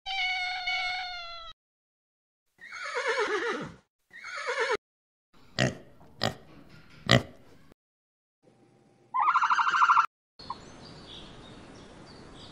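A run of short animal calls cut one after another: a cat's meow at the start, two long falling calls, three sharp pig grunts in the middle, a buzzy call, then a soft steady hiss near the end.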